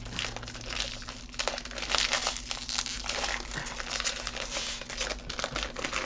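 Foil wrapper of a mystery wand pack crinkling and crackling unevenly as hands pull and twist at it, trying to tear it open.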